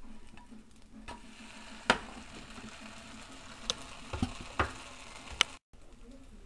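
A vibibi (rice pancake) sizzling in a non-stick frying pan, with sharp knocks of a spatula against the pan as the pancake is turned and handled; the loudest knock comes about two seconds in, and several lighter ones follow. The sound cuts out for an instant near the end.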